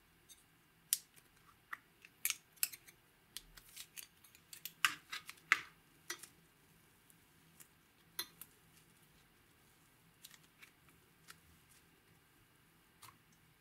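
Green foam-bead slime crackling and clicking as fingers squeeze and fold it, a scatter of sharp little pops that are thickest in the middle and thin out toward the end.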